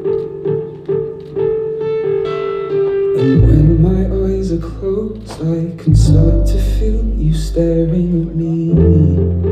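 Backing music for a stage dance routine: repeating plucked notes, joined about three and a half seconds in by a heavy deep bass and sharp drum hits.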